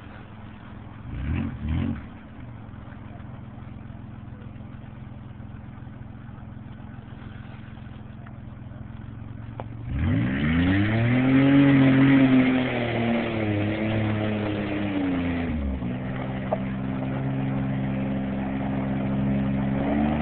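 Toyota SR5 4x4 automatic's engine running low and steady, with two brief louder bursts about a second in. About halfway through it revs up sharply and is held at high revs for several seconds under load, then drops back to a steadier, lower pull.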